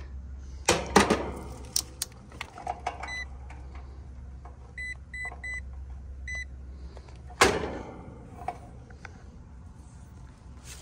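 Short high beeps from a digital multimeter testing an AC run capacitor: one about three seconds in, then three quick beeps and a fourth a second later. Sharp clicks and knocks of the capacitor's wire connectors and meter probes being handled, the loudest about seven seconds in, over a steady low hum.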